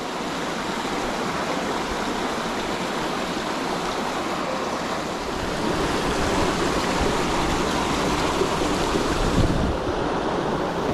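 Steady rush of a small hill-stream waterfall and its cascades pouring over rocks.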